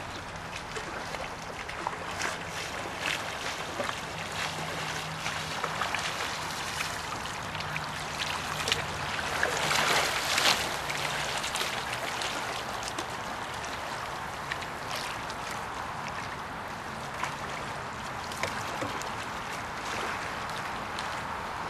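Single-blade paddle strokes splashing beside a C1 slalom canoe over a steady rush of river water; about halfway through, a louder burst of splashing as the boat pivots close by and its hull throws spray.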